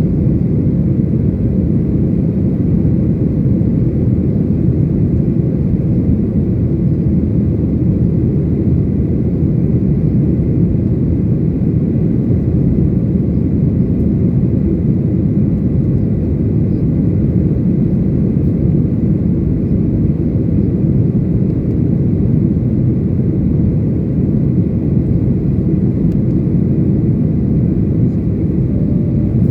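Boeing 737 airliner in flight, heard from the passenger cabin: a loud, steady rumble of jet engines and airflow, with a faint thin whine above it.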